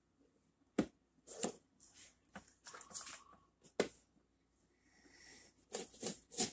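A chef's knife slicing through a red onion and knocking on a wooden cutting board: about five separate, sharp taps with pauses between them.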